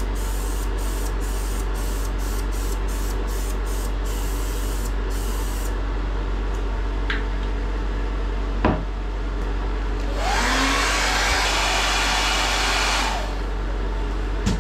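Preval aerosol sprayer hissing as it sprays tub repair coating, pulsing about three times a second, stopping about six seconds in. A sharp click near nine seconds, then a louder hiss of about three seconds, over a steady low hum.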